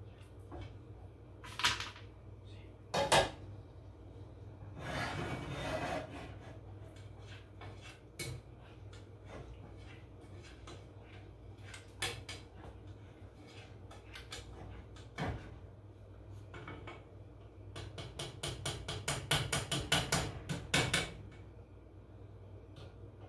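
Kitchen handling sounds from cooking: a few sharp knocks and clatters of cookware and utensils, a short rush of noise, and near the end a quick run of ticking or scraping strokes about five a second, over a steady low hum.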